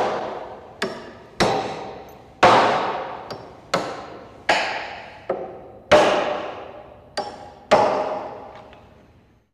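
Hammer blows with a long echoing decay: about ten strikes at uneven spacing, some heavy and some lighter, each ringing on and fading. The last one dies away near the end.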